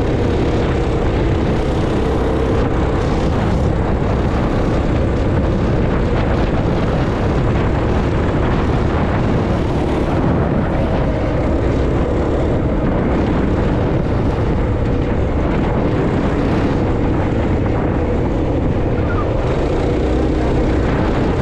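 Motorbike running at road speed, with a steady drone and heavy wind rush on the rider-mounted microphone.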